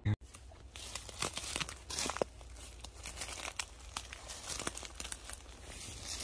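A sharp click at the very start, then irregular crunching and crinkling, a few strokes a second, of footsteps through dry leaves and brush in the dark woods.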